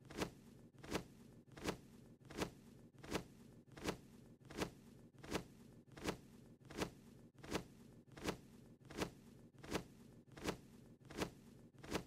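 Cartoon wing-flap sound effect of a small bird hovering in place: a short swish repeating evenly about every three-quarters of a second, over a faint low hum.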